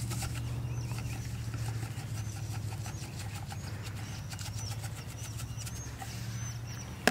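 Propane fire pit burner running with a steady, fluttering low rumble. Faint short high chirps repeat over it every half second or so.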